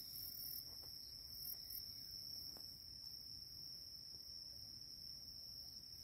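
A faint, steady insect chorus at dusk: one unbroken high-pitched drone, with a faint low rumble underneath.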